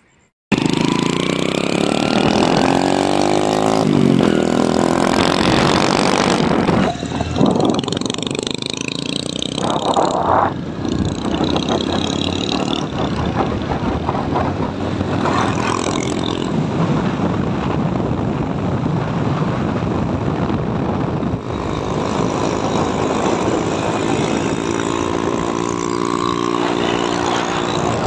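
Motorcycle engine running while riding at speed on a road, its pitch rising and falling with the throttle, under heavy wind noise on the microphone.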